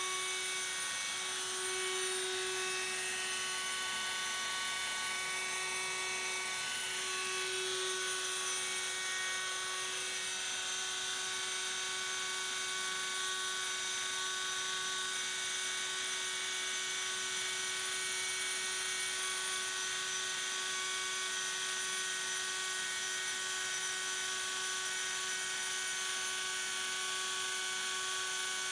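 Small electric milling spindle on an ABB IRB 120 robot arm running at high speed while milling, a steady high-pitched whine with a faint hiss. The whine wavers slightly a couple of times in the first eight seconds.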